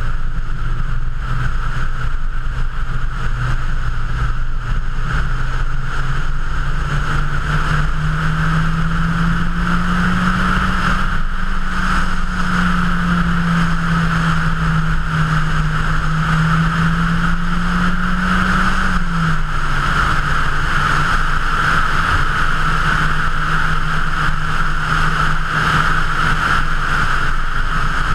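Mazda MX-5's four-cylinder engine pulling steadily on the open road, its note climbing over the first ten seconds or so, holding, then dropping a little about nineteen seconds in and running steady. A constant rush of wind and road noise runs under it.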